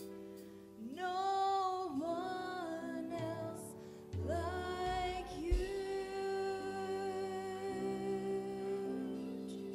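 A woman singing long wordless notes with a worship band playing softly behind her. One phrase rises and holds about a second in, and a second phrase starts about four seconds in and holds steady until near the end.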